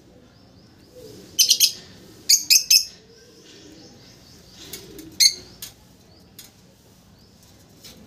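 Pet lovebird giving high, sharp chirps in quick groups of three, about a second and a half in and again around three seconds, then a few more single chirps around five seconds.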